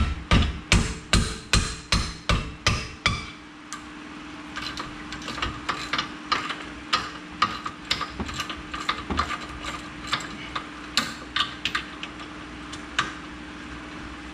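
Hammer blows on a wrench to break loose the 16 mm caliper mounting bracket bolt on a BMW Z3 rear hub: about nine quick metal strikes, roughly two to three a second, in the first three and a half seconds. After that come lighter, irregular clicks and taps as the wrench and bolt are worked, over a steady low hum.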